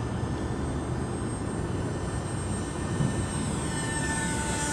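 Twin electric ducted fans of a GWS Me-262 RC model jet whining in flight over a steady rushing noise; near the end the whine grows clearer and slides down in pitch as the model passes low and close.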